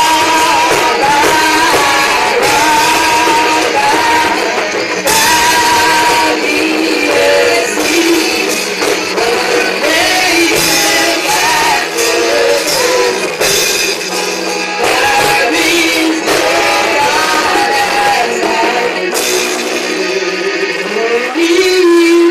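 A woman singing a gospel song into a handheld microphone, her amplified voice carried over band accompaniment with guitar.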